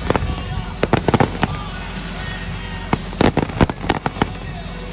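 Aerial fireworks going off: clusters of sharp bangs and crackling pops, about a second in and again around three seconds in.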